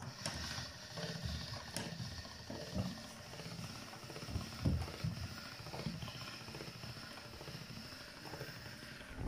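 Hand-cranked Atlas 150 pasta machine turning, its steel rollers rumbling unevenly with light knocks as a sheet of shebakia dough is rolled thinner on thickness setting 3.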